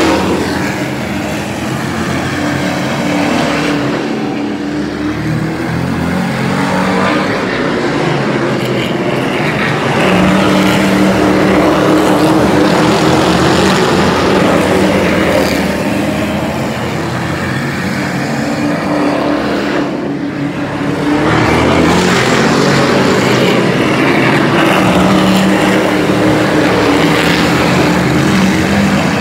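A pack of super truck race trucks running at racing speed around a short oval. The engine noise rises and falls as the trucks come round, loudest from about ten seconds in and again from about twenty-two seconds in.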